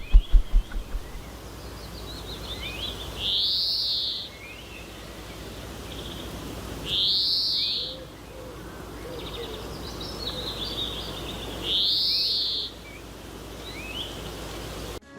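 A bird calling loudly four times, about four seconds apart: each call is a high note about a second long that rises and falls, with fainter short chirps in between. A few low knocks sound in the first second.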